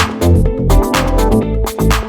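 Background electronic dance music with a steady, driving beat and bass.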